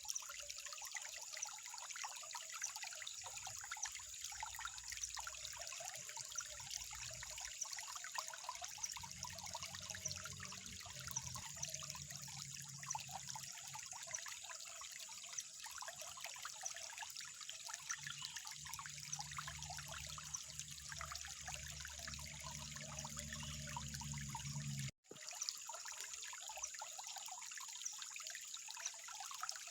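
Water trickling steadily, a fine bubbling patter, with a low hum underneath for most of the time. Everything drops out for an instant near the end, after which the hum is gone and only the trickle continues.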